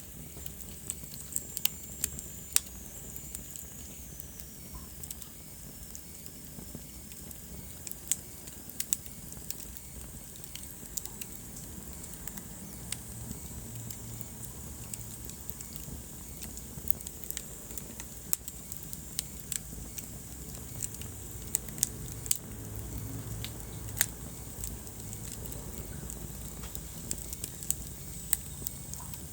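Wood fire burning in a fireplace: a steady low rumble of flames with irregular sharp crackles and pops. A faint high whistle sounds throughout, dipping in pitch in the first few seconds.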